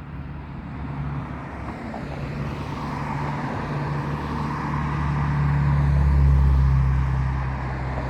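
Car engine and road noise heard from inside a moving car, a steady low hum that grows louder toward about six seconds in, then eases slightly.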